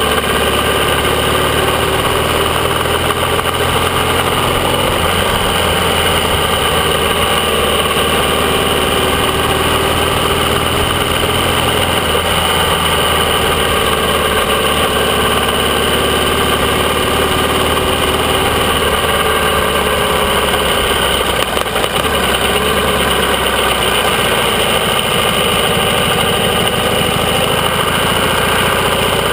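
AJS 650 CSR parallel-twin motorcycle engine running at low road speed, its pitch rising and falling gently with the throttle, heard close up from the bike itself.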